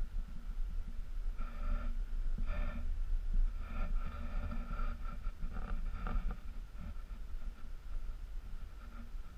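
Low rumble of wind on a GoPro's microphone, with several short, faint noises between about one and a half and six and a half seconds in.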